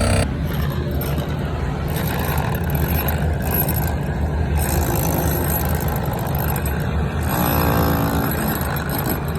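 Aluminum melting furnace running with a steady, loud rushing roar of forced air and fire. The roar starts abruptly at the very beginning.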